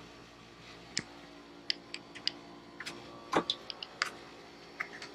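Scattered small clicks and taps of wires and plastic connectors being handled at a LiFePO4 battery bank as the BMS leads are connected, the loudest about three and a half seconds in. A faint steady hum runs underneath.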